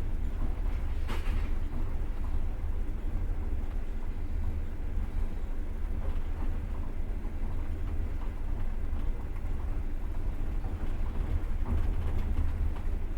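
Passenger train carriage running on the rails, heard from inside: a steady low rumble of wheels on track, with one brief sharp click about a second in.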